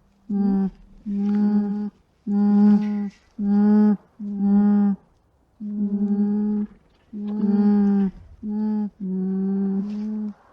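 Alpaca humming: a run of short hums at a steady pitch, about one a second.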